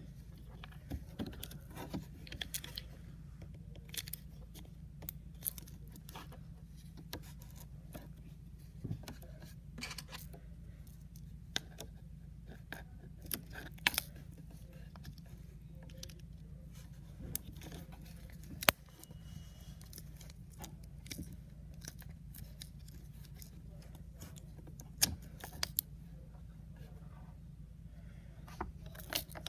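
Scattered light clicks and taps of a clear plastic mold and fingers on a wooden tabletop as blue modelling clay is pressed into the mold and lifted out, over a steady low hum.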